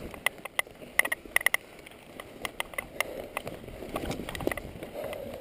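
Mountain bike rattling over a rough dirt trail: irregular sharp clicks and knocks from the bike's parts, over a low rumble of riding.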